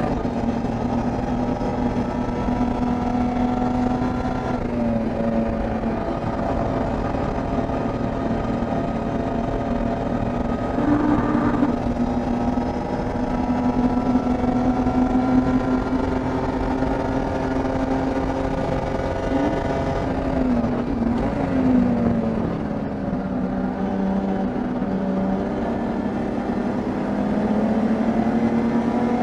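BMW E30 325is SpecE30 race car's straight-six engine running hard under racing load. Its pitch holds fairly level, dips and wavers about two thirds of the way through, then climbs again near the end.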